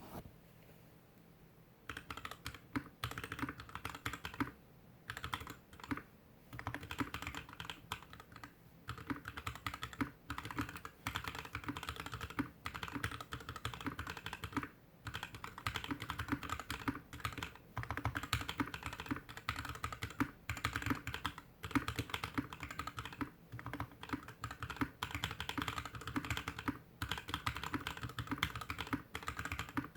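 Typing on a GK61X mechanical keyboard with stock Tecsee Blue Velvet PME linear switches, DSA keycaps, a stainless steel plate and a plastic case, sitting on a desk mat. Steady key clacks start about two seconds in and continue with brief pauses.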